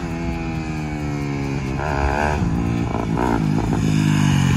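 Dirt bike engine revving, its pitch sliding down over the first second and a half and rising again about two seconds in.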